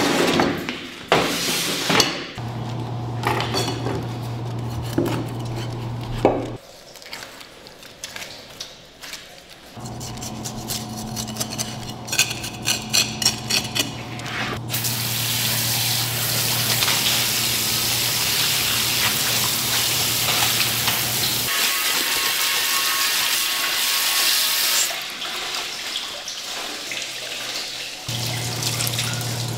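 Restaurant kitchen work: a low steady machine hum that switches on and off several times, a quick run of clattering dishes and utensils, and a steady hiss of about ten seconds in the middle, like running water at a sink.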